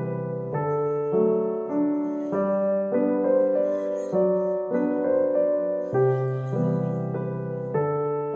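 Background music: a slow melody over sustained chords, changing about once a second.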